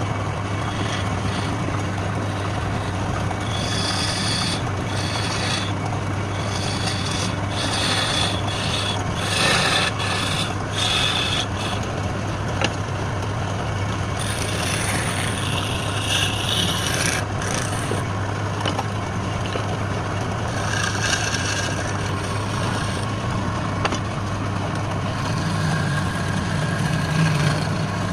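Wood lathe running with a steady motor hum while a turning tool cuts the spinning wood in repeated scraping, hissing passes. The cutting comes and goes, heaviest between about four and eleven seconds in and again around sixteen seconds.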